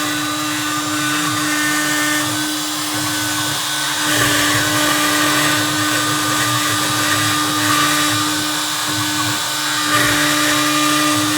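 CNC Piranha router's spindle running steadily while milling HDPE plastic: a constant motor hum over a hiss of cutting noise, which shifts slightly as the cut changes, a little louder from about four seconds in.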